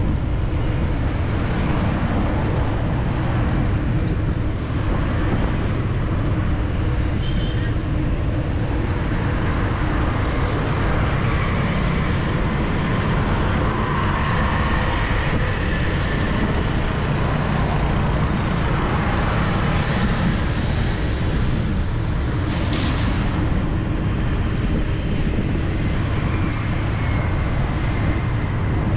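Steady city street traffic, engines of passing vehicles over a constant low rumble, heard from a moving bicycle. A short sharp sound stands out about 23 seconds in.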